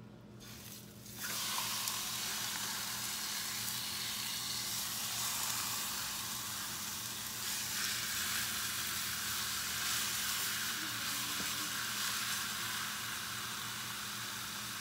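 Boneless pork shoulder roast sizzling as it is laid into a hot oiled pan to brown. The sizzle starts suddenly about a second in and then holds steady.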